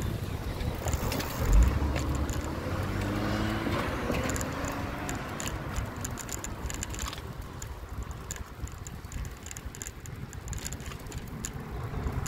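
Road and wind noise while riding along a street, with a low thump about a second and a half in. A vehicle's motor rises in pitch from about three seconds in and fades by five seconds.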